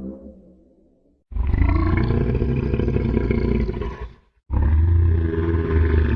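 Mamenchisaurus dinosaur sound effect: a deep call fades out, and after a short pause come two long, deep, rumbling roars of about three seconds each, split by a brief break.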